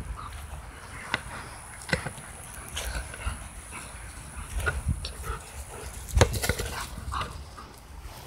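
German Shepherd dog playing with a rubber ball, making short whimpering sounds mixed with sharp knocks of paws and mouth against the ball; the loudest knock comes about six seconds in.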